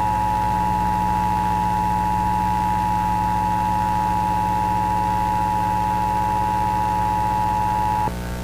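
Emergency Alert System attention signal: a steady high electronic tone holding for about eight seconds, then cutting off sharply. It plays over a constant low electrical hum.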